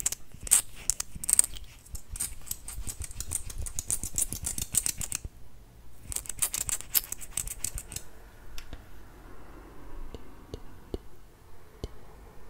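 Close-miked ASMR wet clicking: rapid, crisp clicks in a run of about five seconds, a brief pause, and a second, shorter run. After that it turns quieter, with only a few scattered soft ticks.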